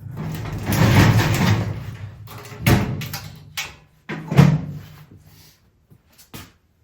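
Metal clunks, scraping and rattling as heavy equipment is handled on a steel welding cart, with two loud knocks a couple of seconds apart in the middle.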